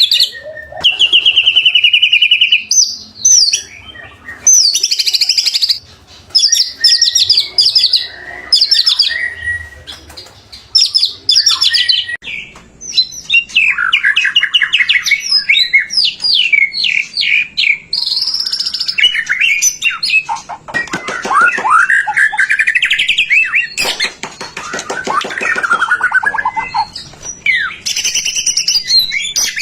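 White-rumped shama singing a long, varied song of short phrases: fast trills and clear whistles, with lower, sweeping phrases in the second half.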